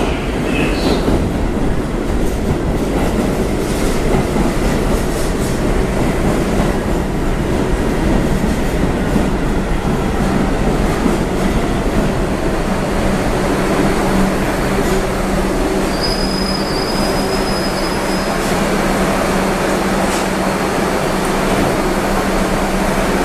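R62 subway train pulling into the station and braking to a stop along the platform. The wheels rumble steadily on the rails with some clickety-clack, a high squeal rises for a few seconds about fifteen seconds in, and a steady low hum follows near the end as the train stands.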